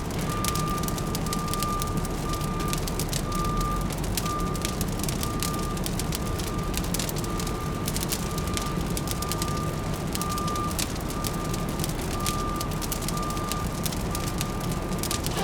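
Wood fire crackling with dense small pops over a low city traffic rumble. A high electronic beep repeats steadily throughout, like a vehicle's reversing alarm.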